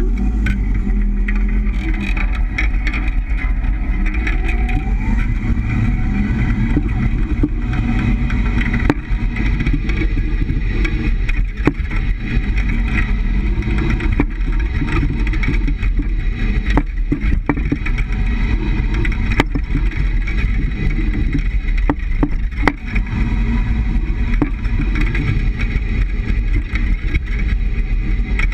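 Road and tyre noise with a steady low rumble, heard from under a moving 200-series Toyota HiAce at its rear leaf spring, broken now and then by sharp knocks. The knocking is the rear bump stop hitting, which the shop puts down to the 3-inch lowering blocks.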